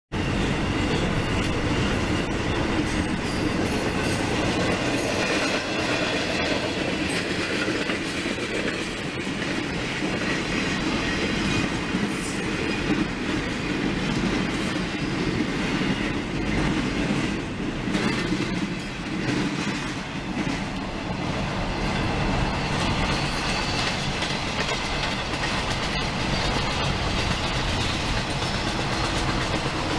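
Florida East Coast freight train of flatcars carrying highway trailers rolling past at speed: a steady rumble of steel wheels on the rails with irregular clicks, heard from a car driving alongside the train.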